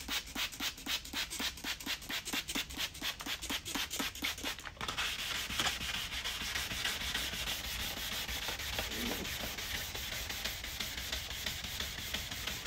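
Hand wet-sanding of an oxidised plastic headlight lens with sandpaper: quick, regular back-and-forth strokes, about five a second, then from about five seconds in a continuous, even rubbing. This is the stage where the yellowed outer layer comes off and the lens turns foggy.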